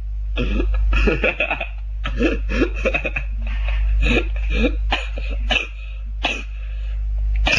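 A person's voice in short utterances with pauses between them, over a steady low hum.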